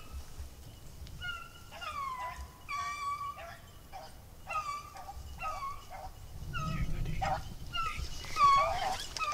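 Beagles giving tongue on a rabbit's track: a string of short, high-pitched bays and yelps, several dogs calling over each other and loudest near the end.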